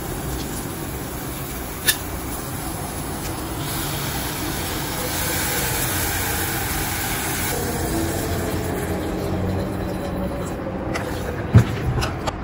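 Steady construction noise: a continuous machinery rumble with no clear rhythm, a little brighter for a few seconds in the middle. Two light, sharp clicks stand out, one about two seconds in and one near the end.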